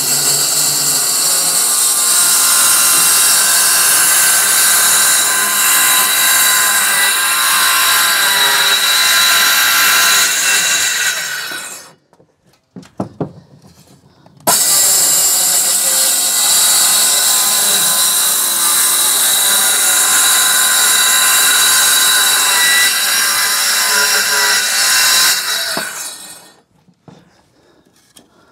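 Cordless circular saw cutting through 18 mm plywood sheets in two long cuts of about eleven seconds each. The saw winds down after each cut, with a couple of seconds' quiet between them.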